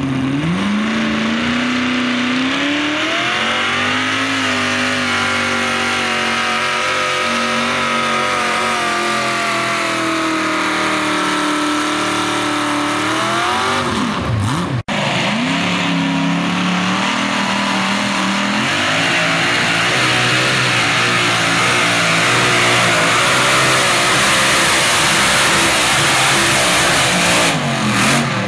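Modified pulling tractor's V8 at full throttle under the load of the sled: the revs climb in the first couple of seconds, hold with a wavering howl, then fall off as the pull ends. After an abrupt cut, a second multi-engine modified pulling tractor runs flat out, growing louder and rougher.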